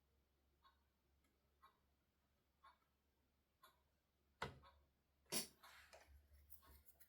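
Quiet handling sounds from painting work: a few faint ticks, then two sharper knocks about four and five seconds in, followed by soft scratchy rustling.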